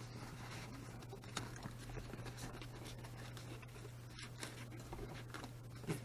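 Faint scratching and rustling with scattered light clicks as a foam speaker baffle is handled and pressed into a door's speaker opening, over a steady low hum.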